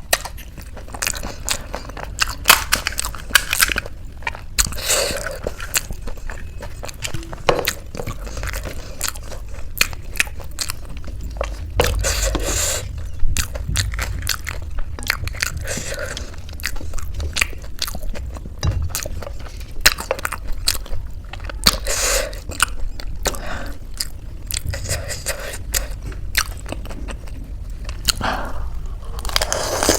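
Close-miked eating: chewing and biting crisp Indian street snacks, with many sharp irregular crunches throughout.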